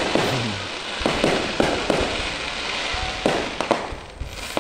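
Aerial fireworks shells bursting overhead: a continuous crackle from the burning stars, with several sharp bangs scattered through it.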